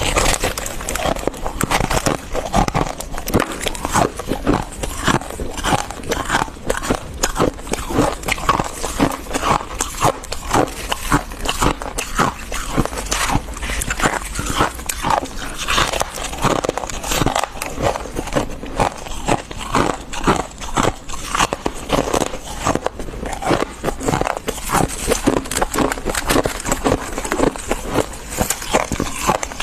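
Close-up crunching of fluffy freezer frost, a rapid uneven stream of crisp crackles and crunches.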